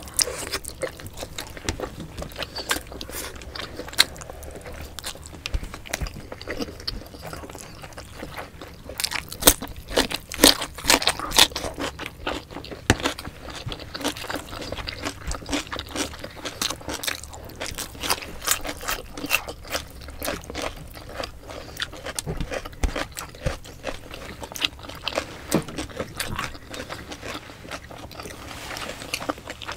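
Close-miked mukbang eating: two people chewing oily braised pork adobo and rice eaten by hand, a steady run of wet chewing clicks and lip smacks, busiest about ten seconds in.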